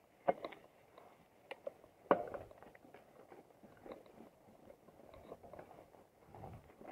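Mountain bike rolling down a rough dirt trail: faint tyre noise with scattered knocks and rattles from the bike jolting over bumps, the loudest knock about two seconds in.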